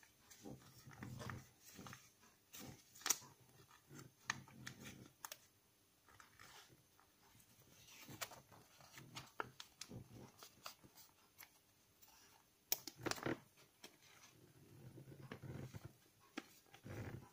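Faint rustling and crinkling of a sheet of origami paper being folded and creased by hand, with irregular sharp crackles as the folds are pressed, the loudest about 3 s and 13 s in.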